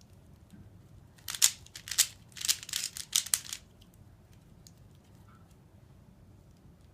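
Rubik's cube being turned quickly: a flurry of sharp plastic clicks and rattles for about two and a half seconds, starting about a second in, then only a few faint ticks.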